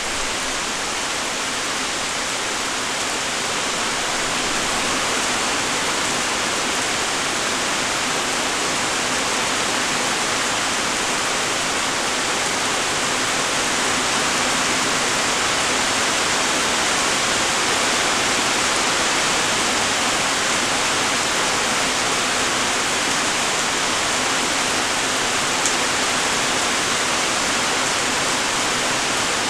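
Steady light rain: an even hiss of many fine drops falling.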